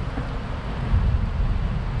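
Wind buffeting the microphone on a moving bicycle: an uneven low rumble over a steady hiss of passing air and road noise.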